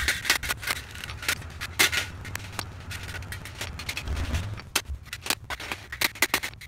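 Small hammer tapping a copper strip flat against a concrete floor: rapid, uneven metallic taps, several a second, working along the strip.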